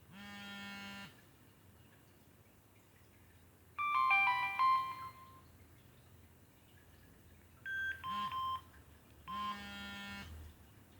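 Samsung SGH-B100 mobile phone playing a ringtone: short bursts of electronic tones with pauses between them. A buzzy, about one-second tone opens and closes the window, and a quick run of pitched beeping notes about four seconds in is the loudest part.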